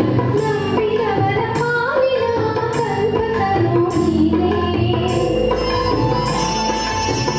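Woman singing a Kannada devotional song over a recorded backing track, with a steady percussion beat of about one stroke a second.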